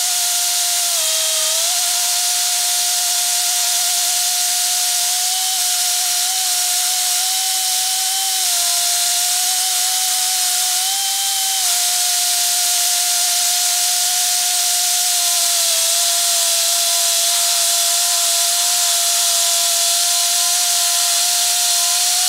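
Gerima SMA 40-P portable beveling machine's electric motor running under load while its milling head cuts a notch into the edge of a steel plate. It makes a steady high whine over a hiss of cutting, and the pitch dips slightly a few times as the load changes.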